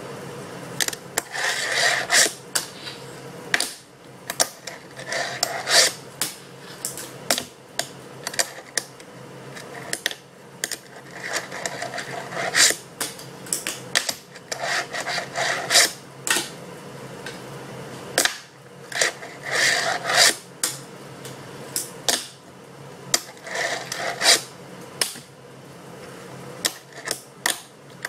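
Fingerboard clacking and rolling on a wooden tabletop: many sharp taps and knocks of the board popping and landing, with stretches of its small wheels rolling across the wood in between.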